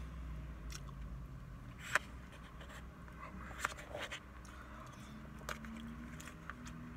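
Spoon clicking and scraping against a black plastic takeout container while eating rice with chicken adobo, a few short sharp clicks. A steady low hum of the car cabin runs underneath.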